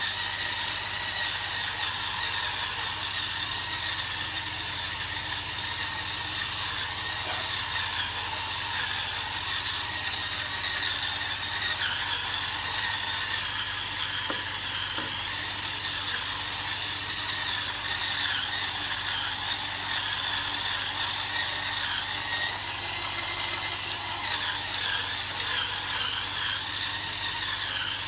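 Hurricane Spin Scrubber's battery motor running, its flat brush head spinning against a wet, ribbed enamel draining board. A steady motor whine, its pitch wavering slightly as the brush is pressed and moved, with the bristles scrubbing underneath.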